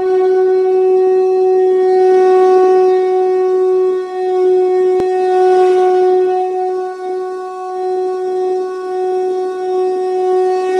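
Conch shell (shankh) blown in one long, steady note, with a brief click about halfway through.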